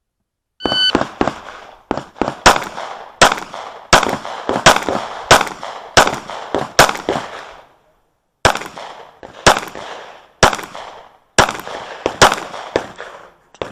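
A shot-timer beep, then a string of 9mm pistol shots from a Sig P365 fired at a steady pace of roughly one every two-thirds of a second. A short break comes about two-thirds of the way in, then more shots follow.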